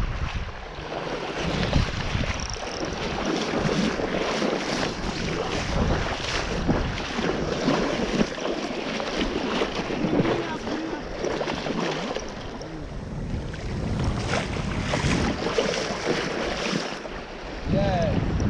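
Wind buffeting the microphone over sloshing shallow sea water, with irregular splashing.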